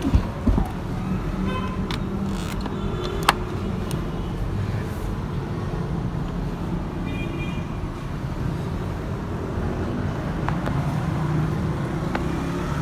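Steady low rumble of motor vehicles and traffic, with a few sharp clicks near the start and about three seconds in, and faint short horn toots.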